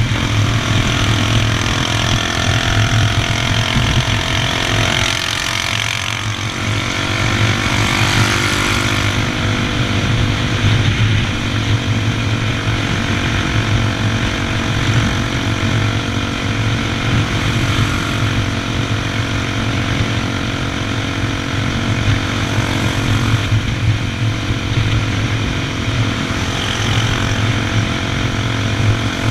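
Honda XR 250 Tornado's single-cylinder four-stroke engine running while the bike rides along, its pitch shifting a little during the first ten seconds and then holding steady.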